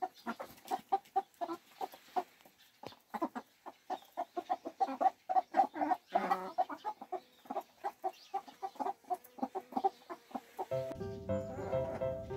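White Silkie hens clucking while they feed: many short, quick pitched notes, some overlapping. Background music comes in near the end.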